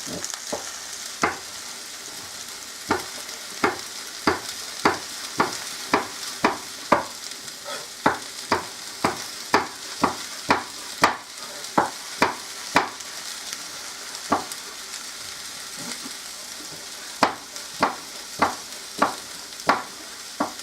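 A knife slicing smoked sausage thin on a cutting board: a steady run of sharp knocks, about one and a half a second, a pause, then a few more near the end. Underneath, potatoes and onions sizzle steadily as they fry in a cast iron pan.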